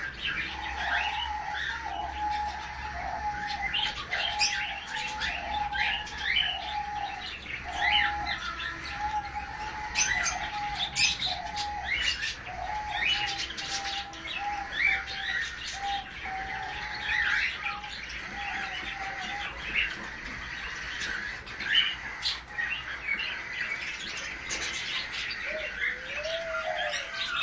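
Caged birds chirping: many short sharp chirps throughout, over a run of short low repeated notes that stops about two-thirds of the way through. A few lower gliding calls come near the end.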